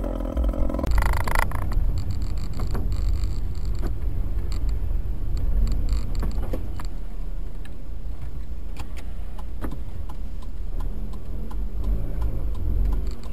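Steady low car engine and road rumble heard from inside the cabin by a dashcam, with scattered faint clicks.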